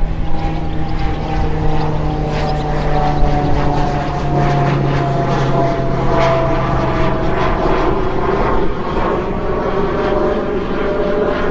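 Aircraft flying past, its engine drone slowly falling in pitch over a rushing noise that grows louder in the second half.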